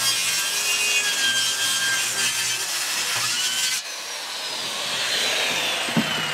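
Corded circular saw cutting through a sheet of half-inch plywood. A little under four seconds in the cut ends and the saw's whine falls steadily as the blade spins down. There is a short knock near the end.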